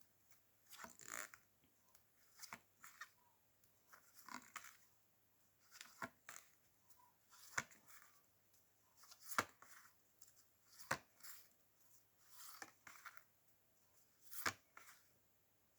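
Near silence broken by faint, short rustles and clicks, one every second or two, like cards or paper being handled.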